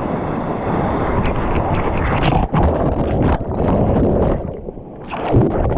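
Rushing water of a waterfall, with wind buffeting the microphone. A short, louder burst comes a little before the end.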